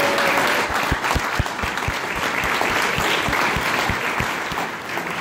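A small audience applauding, with a string of short, dull low thumps running through the clapping.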